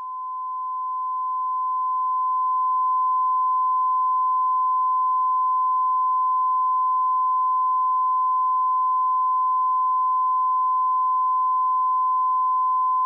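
Steady electronic test tone, a pure sine near 1 kHz, swelling in over the first few seconds and then holding at one pitch.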